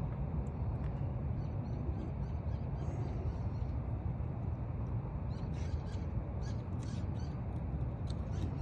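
Birds chirping in short scattered bursts over a steady low background rumble.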